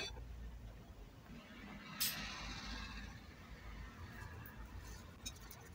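Faint handling sounds of bare hands working raw ground-meat köfte mixture in a glass bowl. A click as a ceramic plate is set down on the stone counter at the very start, and a light knock about two seconds in that trails off over a second.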